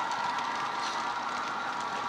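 An ESU LokSound decoder in an HO-scale BR 233 diesel model plays a steady diesel engine sound through its small bass-enhanced speaker, while the train of open wagons rolls past with faint wheel clicks.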